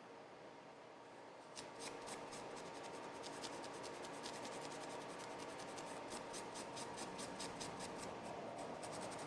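A router bit being scrubbed clean, heard as faint, quick, repeated scratchy strokes that start about a second and a half in and carry on steadily.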